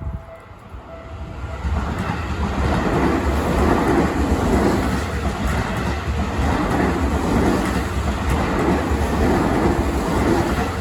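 Japanese level-crossing alarm ringing its repeated two-tone bell for the first second or so, then drowned out as an electric commuter train passes the crossing with a loud, heavy rumble and recurring wheel clatter.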